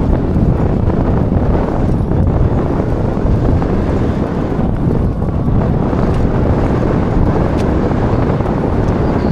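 Strong mountain wind buffeting an action camera's microphone: a loud, steady, low rumble with no breaks.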